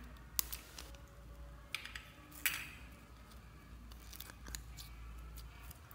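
Small sharp clicks and crackles as a clear blue squishy toy is pressed and squeezed between the fingers, the loudest about half a second, one and three-quarter seconds and two and a half seconds in.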